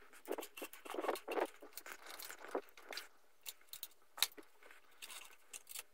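Light metallic clicks and rattles of hand tools and brake-line fittings being handled during motorcycle brake-line work, in short irregular bursts, with one sharper click about four seconds in.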